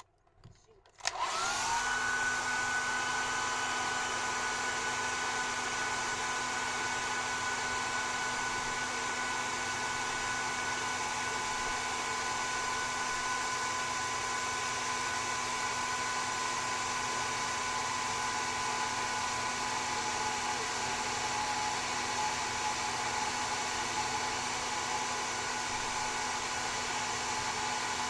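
Hair dryer switched on about a second in: its motor spins up, then runs steadily with a whine over the rush of blown air.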